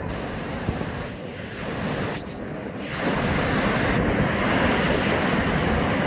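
Ocean surf washing on the beach, with wind buffeting the microphone; the rush grows louder about halfway through.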